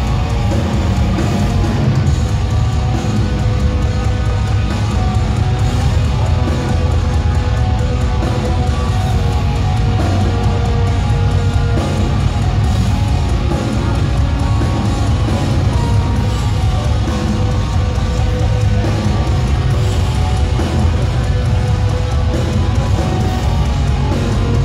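Post-black metal band playing live: distorted electric guitars, bass and drums in a loud, dense, unbroken wall of sound, heard from the crowd.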